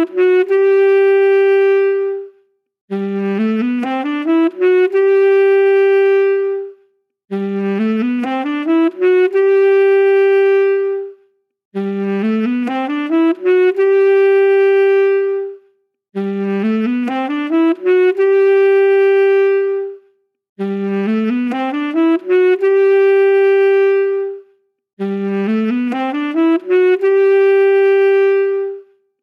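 Saxophone playing the same short phrase over and over: a quick rising run of notes leading into one long held note, then a brief pause. It repeats about every four and a half seconds, each repeat alike.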